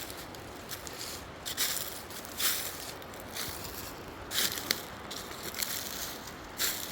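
Footsteps of a person walking, about one step a second.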